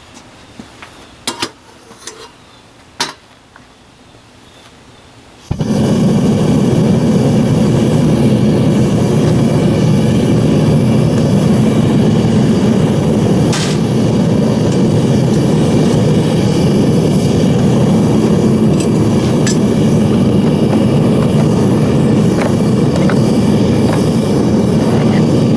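A few sharp metal clinks, then about five seconds in a Devil Forge propane melting furnace's burner and blower cut in suddenly and run loud and steady.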